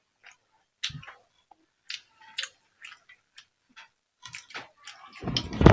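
Close-miked chewing of crunchy raw food such as young jengkol and fresh vegetables: irregular crisp crunches and clicks, with a louder, deeper crunch or thump about five seconds in.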